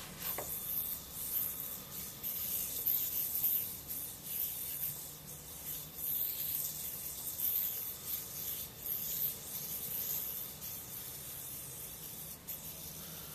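A YoYoFactory PopStar yo-yo being played, its string giving a high, hissing rub that swells and fades unevenly.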